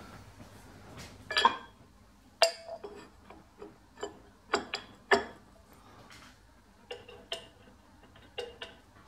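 Irregular sharp metallic clinks of a steel pin wrench and an open-ended spanner engaging the wheel flange nut and spindle of a surface grinder as the nut is nipped up, some with a short ring.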